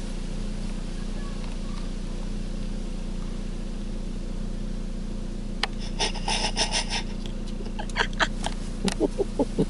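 White cotton shirts rustling and rubbing close to the microphone in bursts over the second half, with a few sharp clicks, over a steady low hum in the car cabin.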